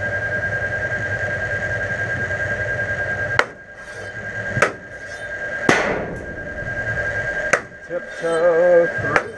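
A steady hum with a rapid pulse and a thin high tone, broken from about three seconds in by a series of about five loud, sharp bangs like blows on a hard surface. A short wavering cry is heard near the end.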